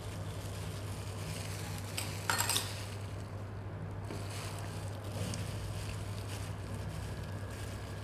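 Gloved hand tossing and squeezing wide rice noodles with dark soy sauce in a bowl: soft squishing and the crinkle of a plastic glove, with a brief louder crinkle about two and a half seconds in. A steady low background hum runs underneath.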